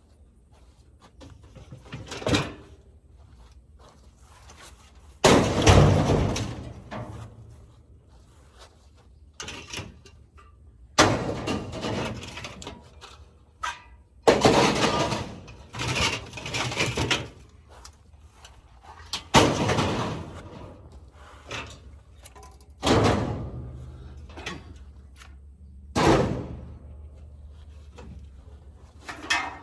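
Scrap being thrown onto a pile: about seven loud crashes and clatters a few seconds apart, each dying away over a second or two.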